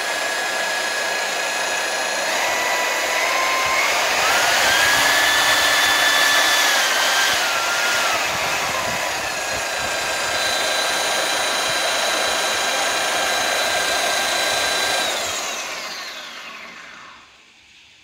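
MAB 1300V magnetic core drill's motor running free with no cut, its whine stepping up in pitch twice as the speed dial is turned up, dropping back, then holding steady. About fifteen seconds in it is switched off and winds down, its pitch sliding lower as it fades out.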